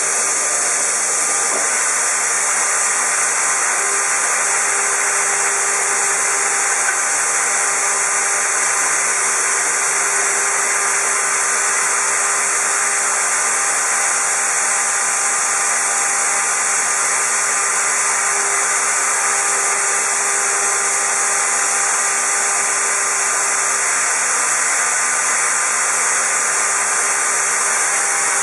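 Shoda NC router running while trimming a pressure-formed plastic keyboard cover: a steady high hiss with a faint hum that comes and goes.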